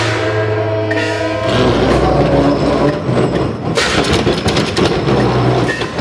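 Large wheeled festival ship float rumbling over stone paving as its carriers spin it round, with rapid clattering from about four seconds in. A held, pitched call sounds at the start.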